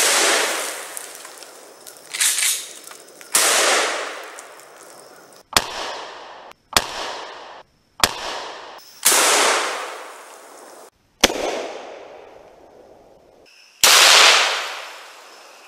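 Mossberg 500A 12-gauge pump-action shotgun firing a string of about nine shots, one every second or two, each blast trailing off in a long echo. Several of the echoes cut off abruptly where takes are spliced together.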